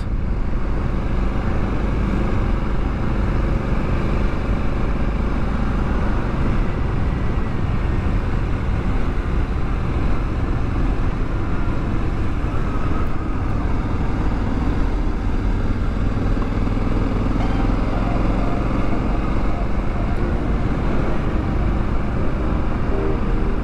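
Honda Africa Twin motorcycle under way, its parallel-twin engine running steadily with road and wind noise.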